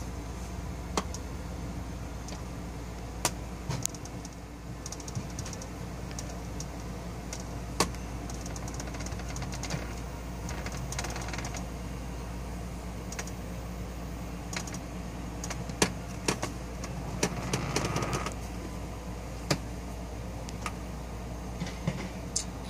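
Steady low hum with irregular sharp clicks and knocks scattered through it, and a short rattling noise about three quarters of the way in.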